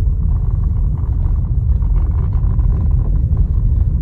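Lada Vesta on the move: a steady low rumble of running gear and road, with faint irregular knocks of the kind its electric power steering is known to make.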